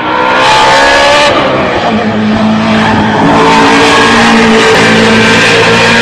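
BMW M3 GTR race car's V8 engine running hard at high revs. Its pitch shifts during the first second or so, then holds a loud, steady note.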